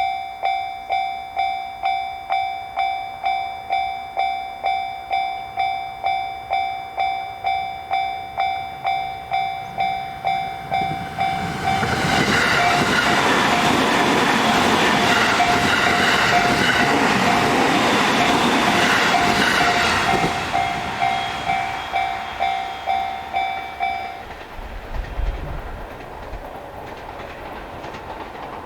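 Japanese railroad crossing alarm ringing its steady "kan-kan", about two strikes a second. A JR Sobu Line train passes through the crossing, drowning the alarm for about eight seconds midway. The alarm stops a few seconds after the train has gone.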